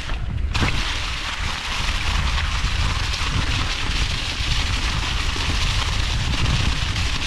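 Wind buffeting the microphone with the hiss of tyres rolling over a dirt trail as a mountain bike is ridden: a steady low rumble under an even rushing hiss, which drops away for a moment right at the start.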